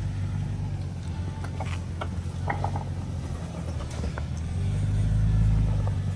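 Toyota Tacoma pickup's engine running at low revs as the truck crawls over a technical off-road section, with a few light clicks and knocks, the engine growing louder near the end.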